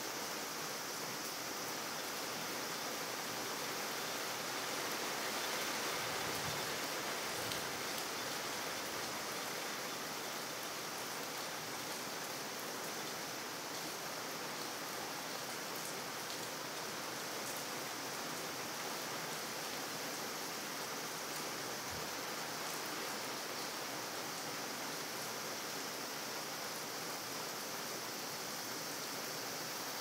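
Steady rain falling on wet pavement: an even hiss, swelling slightly about five to eight seconds in.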